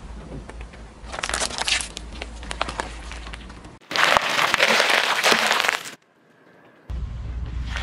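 A car tyre rolls slowly over a plastic margarine tub, which crackles and cracks under it over a low rumble. Then, about four seconds in, the tyre crushes heads of romaine lettuce with a loud, dense crunch lasting about two seconds. After a brief quiet gap, another round of crackling begins near the end.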